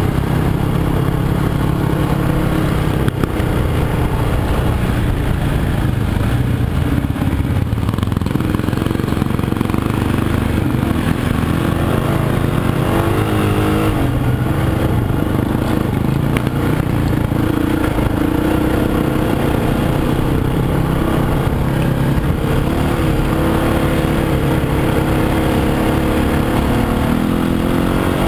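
Off-road motorcycle engine running without a break on a dirt trail, its pitch rising and falling as the throttle opens and closes.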